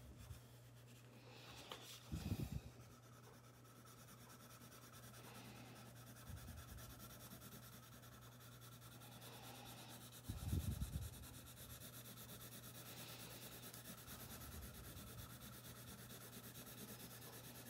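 Coloured pencil shading on paper: a faint, steady scratchy rubbing of the lead across the sheet, laid on lightly with the side of the pencil. Two short low thumps break in, about two seconds in and again near the middle, over a faint steady low hum.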